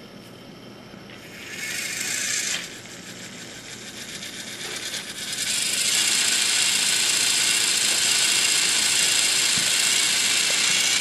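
Tomy Trackmaster Gordon toy train's battery-powered gear motor whirring as it runs along plastic track. It grows much louder about halfway through as the engine comes close, then runs steadily.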